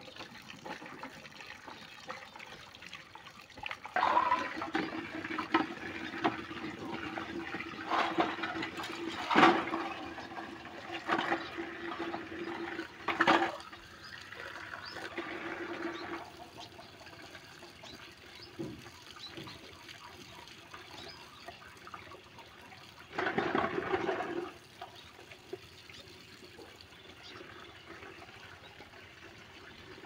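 Water splashing and sloshing in a bucket as bird drinking containers are rinsed by hand under a running outdoor tap, with a few sharp knocks of the containers against the bucket. The splashing is loudest in the first half and again in a short spell about two-thirds of the way through.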